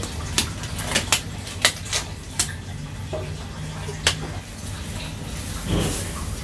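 Thin rubber gloves being handled and pulled onto the hands: a string of sharp snaps and crinkles over the first few seconds, then a longer rustle near the end, over a steady low hum.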